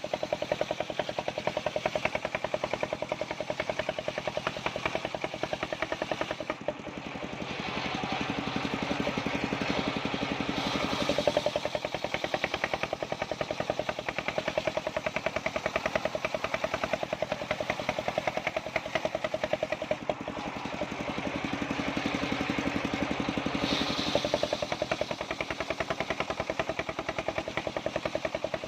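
Engine-driven wood saw running steadily while sawing waru wood into thin roof battens, easing briefly about a quarter of the way in.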